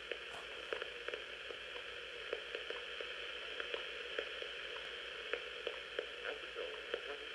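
Shortwave static from the Realistic Timekube WWV receiver's small speaker: a steady hiss with irregular crackles and pops.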